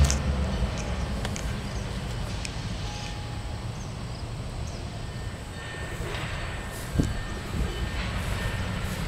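Distant CN GP9RM diesel locomotives running, heard as a steady low rumble, with a single sharp click about seven seconds in.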